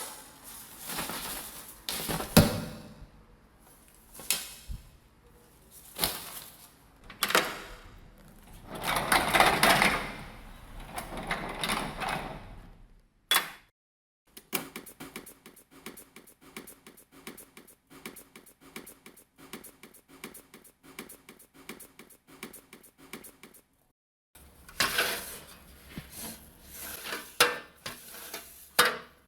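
A run of separate household sound effects. First come knocks with sliding or rustling noises, of the door-and-drawer kind. Then about ten seconds of quick, evenly spaced clicking, and near the end more knocks and handling noises.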